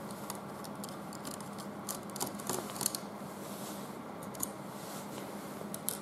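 Small screwdriver backing out the screws that hold a ThinkPad T30's CPU fan and heatsink. Faint, scattered clicks and scrapes of metal over a steady low hiss.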